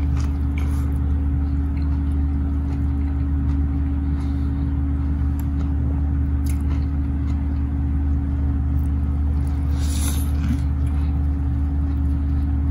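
A man chewing a mouthful of burger, with a few faint wet mouth clicks and smacks, the most distinct about ten seconds in. A steady low hum runs underneath and is louder than the chewing.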